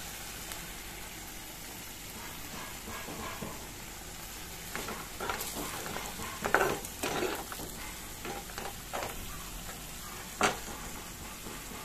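Potato curry simmering in a wok while a metal spatula stirs and scrapes through it in a series of short strokes. The strokes are busiest in the middle, with one sharper scrape near the end.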